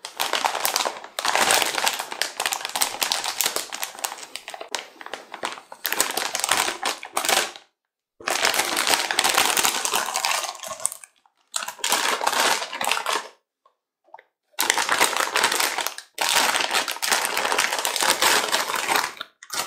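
Crinkling of a metallised anti-static plastic bag as a graphics card is worked out of it by hand, in four long stretches broken by short silent gaps.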